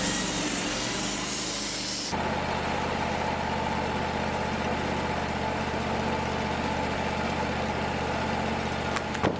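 Wood-Mizer sawmill's engine running steadily. For the first two seconds a strong hiss sits over it, then the sound switches abruptly to a plain steady hum, and two sharp clicks come near the end.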